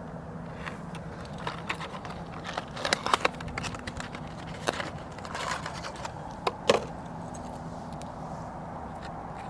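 Weco Creepy Crackles youth firework crackling: irregular sharp pops, scattered at first and thickest about three seconds in, with one loudest crack near the seventh second, then thinning to a few stray pops.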